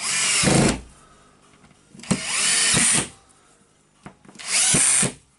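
Power drill/screwdriver run in three short bursts of about a second each, its motor pitch rising and falling in each burst.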